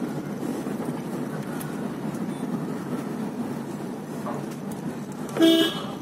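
Steady road and engine noise inside a moving car's cabin, broken by one short, loud car-horn honk about five and a half seconds in.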